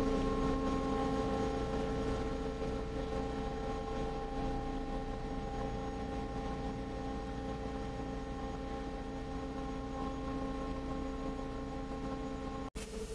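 Steady machinery hum, a drone made of several held tones over a low rumble, that breaks off for an instant near the end.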